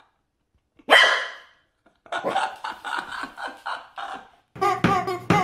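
Corgi puppy barking at a rubber chicken toy: one sharp bark about a second in, then a quick run of short yaps. Near the end, rhythmic music starts.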